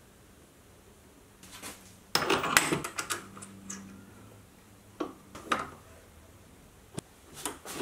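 Scattered clicks and short metallic clatters from a keyed drill chuck in a mini lathe's tailstock being handled and its sleeve turned by hand. The busiest clatter comes about two seconds in, with single clicks after it.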